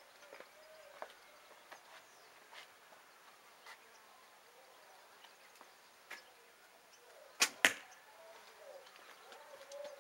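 A Ben Pearson Woodsman Hunter recurve bow shooting an arrow: a sharp snap of the string on release, then a quarter of a second later a second sharp crack as the arrow hits the target. Faint bird chirps are heard around it.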